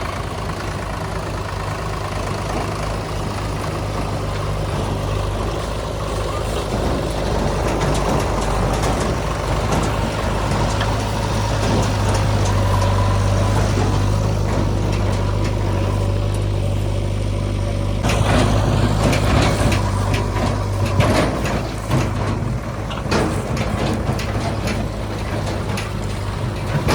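JCB 3DX backhoe loader's diesel engine running steadily while it digs, with a held whine in the middle. About two-thirds of the way in, repeated knocks and clatter begin over the engine.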